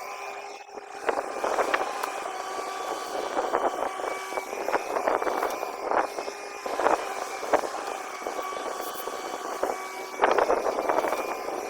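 Long-boom excavator at work: its engine and hydraulics hold a steady multi-tone whine while the machine gives off irregular bursts of clanking and clatter, several times and heaviest near the end.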